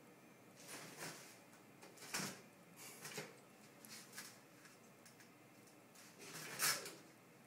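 A kitten batting and tugging at unrolled toilet paper: faint, irregular paper rustles and swishes, the longest and loudest near the end.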